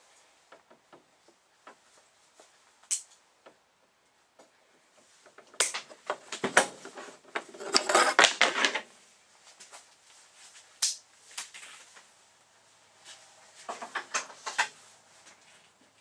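Scattered clicks and knocks of tools and cable being handled on a wooden workbench, with a burst of clattering about six to nine seconds in and a shorter one near the end.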